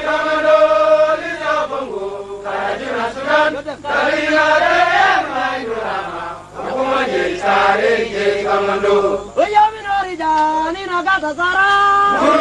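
SPLA soldiers chanting a song, with long held notes that slide up and down between short breaks.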